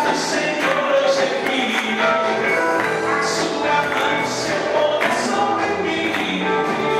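Gospel worship song: a choir singing over a full band, with regular cymbal strokes.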